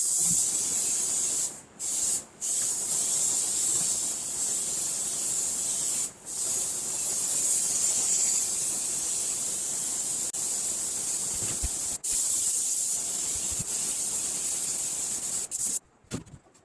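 Compressed-air spray gun spraying a coat onto the wood carving: a steady hiss, cut off briefly about three times as the trigger is let go, that stops near the end.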